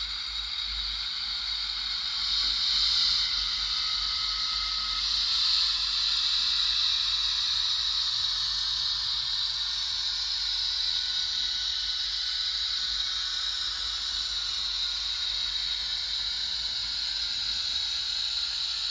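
Piko HO-scale Vossloh G6 model diesel shunter with a DCC sound decoder running with its freight wagons on curved track: a steady high hiss from the small speaker and the wheels on the rails, with faint thin tones above it and no deep engine rumble. It swells slightly twice in the first few seconds.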